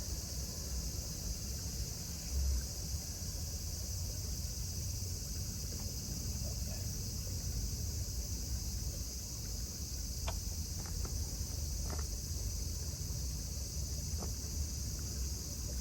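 Steady high-pitched drone of insects, with a low rumble of wind on the microphone and a few faint clicks.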